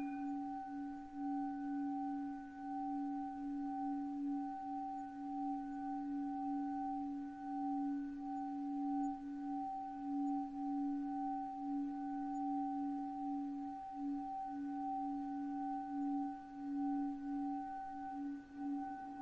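Time-stretched sound effect: a sustained ringing drone, a low tone with two fainter higher tones above it, held steady with a gentle pulsing in loudness, like a singing bowl.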